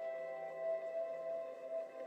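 Soft ambient background music of long, held, ringing tones.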